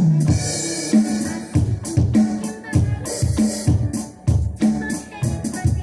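Band music with a steady drum-kit beat, bass drum and bass line, and cymbal crashes about half a second in and again about three seconds in.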